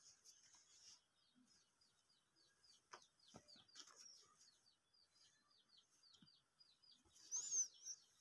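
Faint, rapid run of short high bird chirps, about three to four a second, with one louder chirp near the end; a few soft knocks and rustles of cloth being handled.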